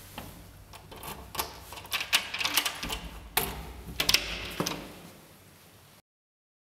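A 3D-printed key copy sliding into a door lock cylinder and turning it, with a string of sharp metallic clicks and rattles from the lock and lever handle as the copied key works the lock. The sound cuts off abruptly about six seconds in.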